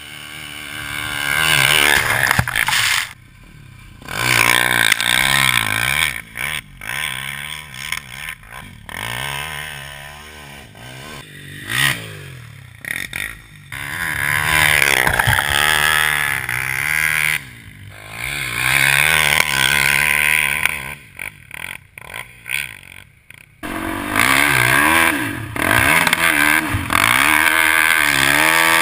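Polaris Outlaw 450 MXR quad's KTM 450 single-cylinder engine through a Motoworks SR4 slip-on exhaust, revving up and easing off again and again. Each run of throttle rises in pitch and then falls away.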